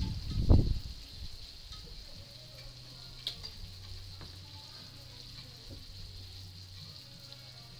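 Plastic squeeze bottle of yellow mustard sputtering as it is squeezed onto burger buns, one short loud burst about half a second in. After it comes a faint steady sizzle.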